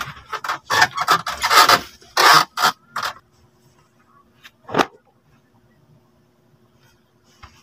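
Rough scraping and rubbing as stacked fabric doormats are handled, loud and irregular for about three seconds. After that a faint steady hum, with two single knocks: one about five seconds in and one near the end.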